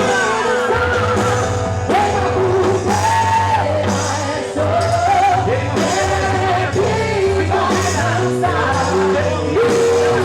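Quadrilha junina song playing loudly: a singer's held, gliding melody over a steady rhythmic accompaniment.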